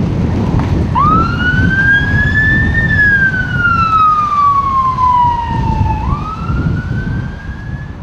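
A siren wailing: it starts about a second in, rises in pitch for about two seconds, falls slowly for about three, then rises again near the end. Under it is a steady rumble of wind on the microphone.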